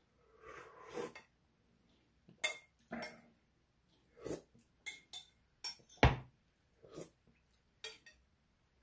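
Noodle broth slurped from a glass bowl for about a second. A metal spoon then clinks and scrapes against the bowl several times, with one louder knock about six seconds in.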